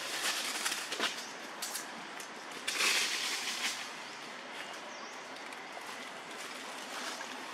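Outdoor natural ambience with rustling and scattered small clicks, and a louder rustle about three seconds in.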